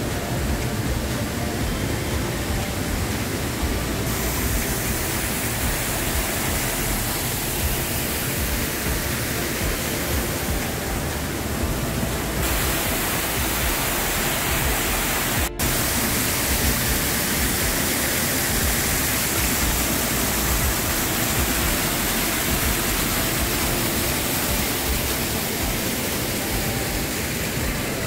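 Steady rushing of waterfall and burn water, an even hiss of falling water that briefly cuts out about fifteen seconds in.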